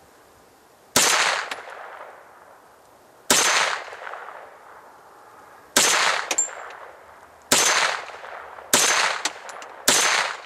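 Six single shots from a 9mm Sterling Mk4 semi-automatic carbine firing hot handloads, at uneven intervals of about one to two and a half seconds, each with a short echoing tail. Faint metallic clinks follow a couple of the shots.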